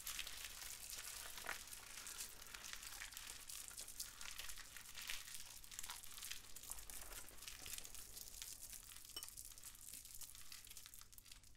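Foley fire sound: crinkling and crackling worked by hand at the microphone to stand for a paper envelope burning in a fireplace. It is a soft, dense run of small crackles that thins out a little near the end.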